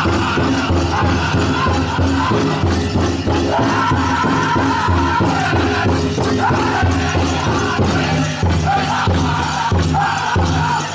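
Powwow drum group singing a chicken dance song over a big drum beaten in a steady rhythm, with the jingle of dancers' leg bells and regalia throughout.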